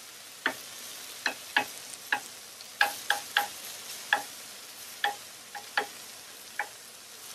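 Chicken thighs sizzling on a steel griddle, with a metal utensil striking the meat and griddle plate in sharp, irregular clicks, about two a second, to tenderize the thick parts before flipping.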